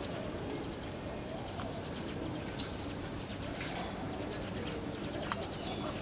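Pigeons cooing softly over a steady low background noise, with one sharp click about midway.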